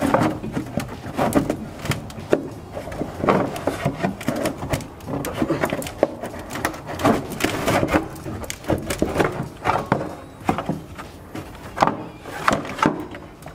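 Thin embossed metal heat shield being worked out from between the exhaust and the floor pan of a BMW E46: irregular knocks, clanks and scrapes of sheet metal against the exhaust and underbody.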